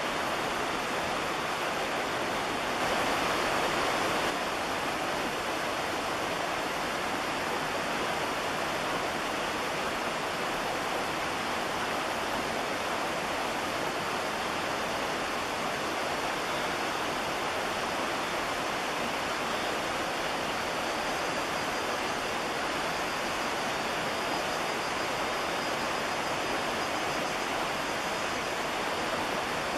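Steady, even rushing noise with no calls or distinct events, a little louder for a second or so near the start.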